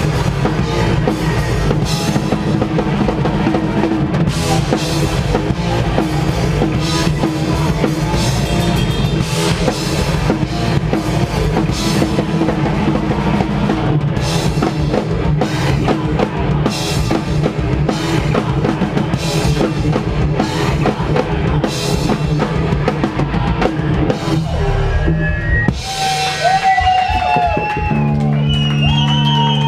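Live post-hardcore rock band playing at full volume: pounding drum kit with bass drum, distorted guitars and bass. Near the end the full band drops out after a final hit, leaving a few sustained ringing notes.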